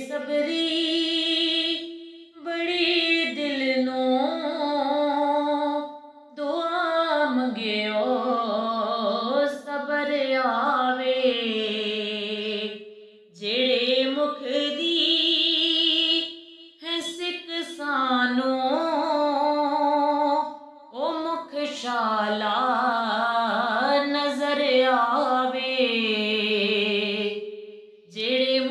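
A woman singing a Punjabi naat solo, in drawn-out, ornamented phrases of a few seconds each with short breaths between them.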